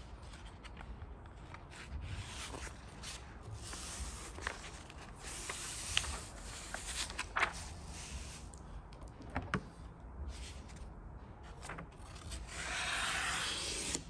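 Paper backing and transfer tape of a vinyl graphic rustling and rubbing under hands as it is peeled and smoothed onto a hood, with scattered small clicks. Near the end a longer, denser scraping hiss as a squeegee is worked over the transfer tape.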